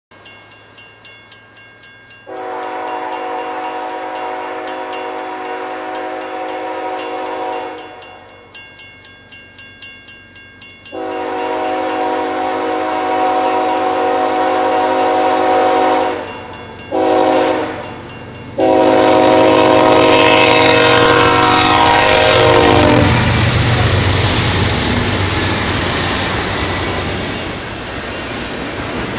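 Diesel freight locomotive's multi-note air horn sounding the grade-crossing signal, long, long, short, long, as the train approaches, with a crossing bell ringing about twice a second in the gaps. After the last blast the locomotives pass and the loud running noise of the double-stack cars' wheels on the rails takes over.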